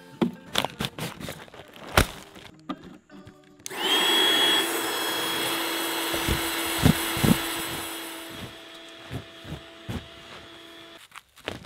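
Electric air pump running steadily as it inflates an Intex air mattress. It starts suddenly about four seconds in, drops in level after about eight seconds, and cuts off just before the end. Before it come rustling and knocks from handling the folded vinyl mattress.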